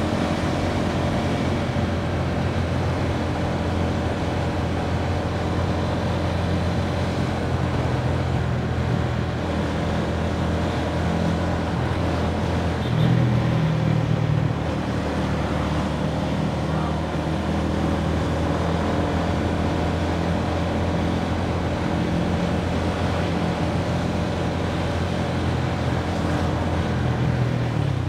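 Motor scooter engine running steadily at cruising speed, a constant hum under a rush of wind and road noise, swelling briefly about halfway through.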